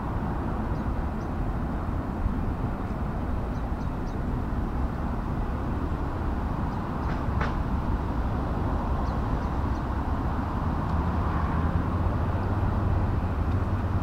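Steady low outdoor rumble, like vehicles running in the distance, with a few faint high chirps and one sharp click about seven seconds in. A deeper hum grows louder near the end.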